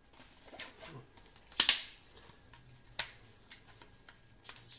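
Rubber door seal being pulled out of the channel of a uPVC door frame: faint rubbing and handling with a few sharp clicks, two of them loud, about a second and a half and three seconds in.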